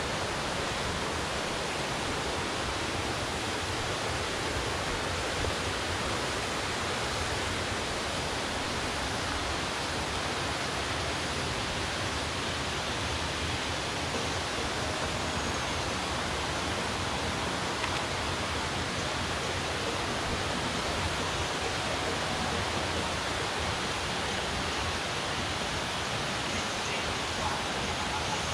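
Waterfall: the steady rush of falling water, an even roar with no breaks.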